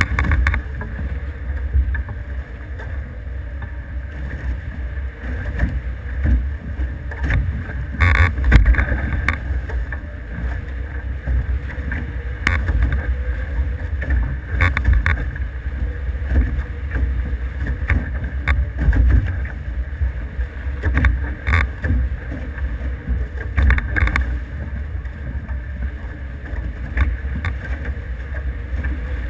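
Steady rush of water along the hulls of an F18 catamaran under sail, with heavy gusting wind buffeting the microphone. A few short sharp hits break through, about 8 and 15 seconds in and again near 21 and 24 seconds.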